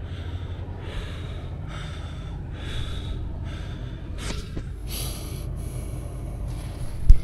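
Heavy, rhythmic breathing close to the microphone, about one breath a second, over a steady low rumble. A single sharp knock, the loudest sound, comes just before the end.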